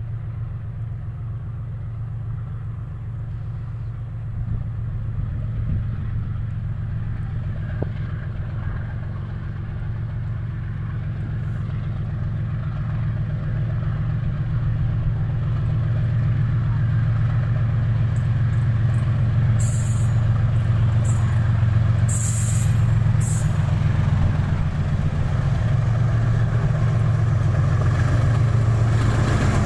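GEU-40 diesel-electric locomotive hauling a freight train, its diesel engine a steady low hum that grows louder as the train approaches. A few brief hisses come about two-thirds of the way in.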